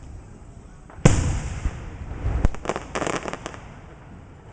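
Fireworks going off: one sharp, loud bang about a second in, followed by a quick run of crackling pops.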